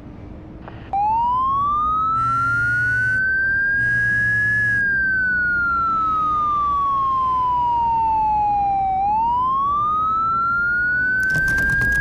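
Police siren wailing. It starts suddenly about a second in, its pitch rising slowly, falling over several seconds and rising again. Two short buzzy blasts sound during the first rise, and a rapid clatter of clicks comes in near the end.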